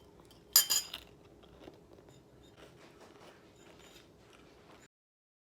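A loud crunch as a crunchy ranch crouton is bitten, then faint crunching and chewing. The sound cuts off abruptly near the end.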